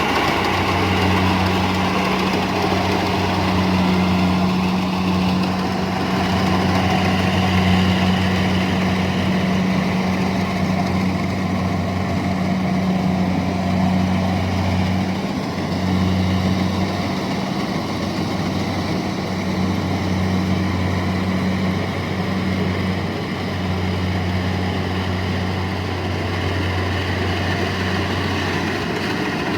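Engine of a rice-harvesting machine running steadily with a deep, even hum, dipping briefly twice about halfway through.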